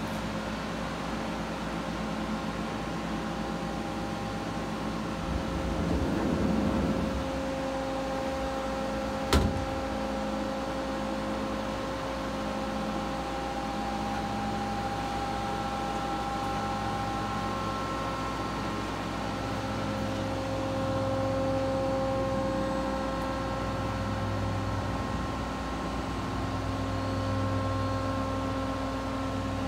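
Steady machine hum with several steady tones from an idling, powered-up CNC turning center. There is a brief louder noisy swell about six seconds in and a single sharp click about nine seconds in.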